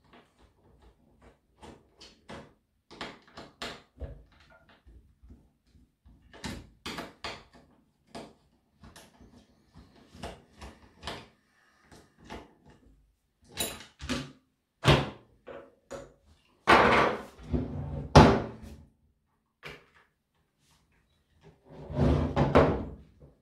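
Hands taking apart a Husqvarna chainsaw on a wooden table: short plastic clicks and knocks throughout, with louder clunks and clatter from about halfway and again near the end as housing parts come off and are set down.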